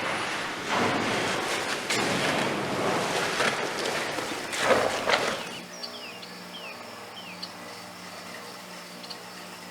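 Rushing, splashing noise that swells and falls, which gives way after about five and a half seconds to a steady machine hum with a few short high chirps.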